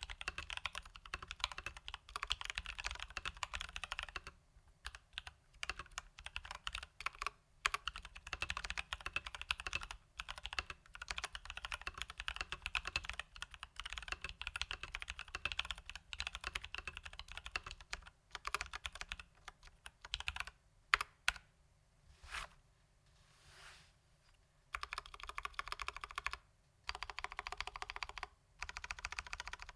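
Leopold FC980M mechanical keyboard with Durock T1 tactile switches lubed with Krytox 205g0 and stock keycaps, typed on in fast runs of keystrokes. There are a few short pauses, and a slower, sparser stretch of keystrokes about twenty seconds in.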